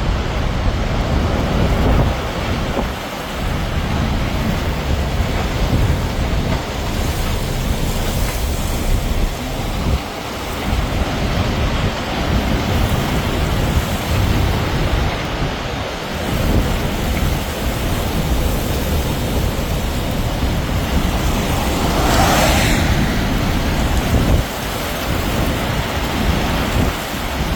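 Roar of a violent tornado at close range: a loud, continuous rushing rumble heavy in the low end, with wind gusting on the microphone. A louder rushing swell comes about 22 seconds in.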